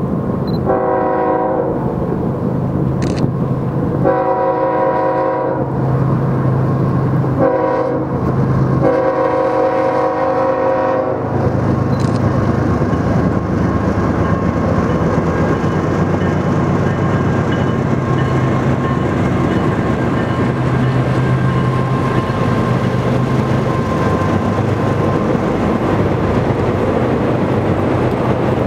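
A train's air horn sounds four blasts over about the first eleven seconds, the last one the longest. After that comes the steady rumble and clatter of the passing train.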